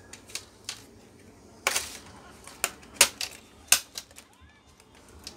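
Irregular sharp plastic clicks and snaps from the plastic screen bezel of a Lenovo G400 laptop being worked loose by hand, with the loudest cluster about two seconds in.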